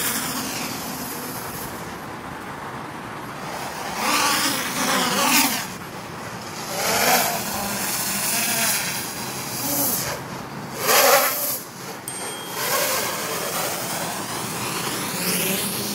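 Traxxas Aton quadcopter's motors and propellers whirring overhead. The sound swells in several loud surges with rising and falling pitch as the throttle is punched through flips.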